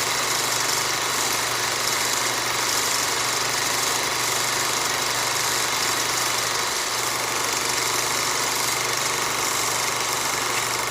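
Old-film sound effect: a film projector running steadily, a continuous hiss over a low hum.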